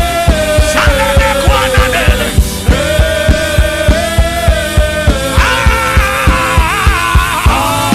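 Instrumental worship music: sustained keyboard chords over a steady drum beat, with a melody line gliding up and down in two phrases over the held chords.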